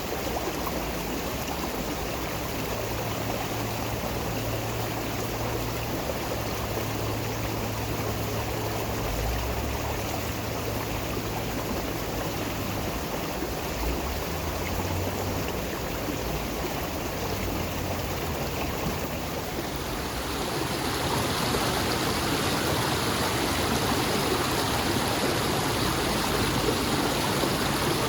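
Running water rushing steadily; about twenty seconds in it grows louder and brighter.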